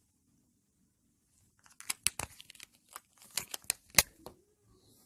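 Marker pen drawing short strokes on a whiteboard: a run of dry scratches and taps that starts about two seconds in and lasts about two and a half seconds, with one sharp tap near the end.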